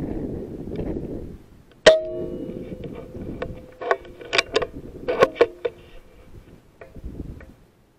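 Air rifle being handled with the scope camera mounted on it: a low rumble of handling noise, then a sharp metallic click with a brief ringing tone, followed by a run of lighter clicks and rattles, some ringing.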